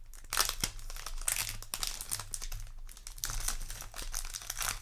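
Foil wrapper of a Yu-Gi-Oh! booster pack crinkling as it is handled and opened, a dense run of irregular crackles and small clicks.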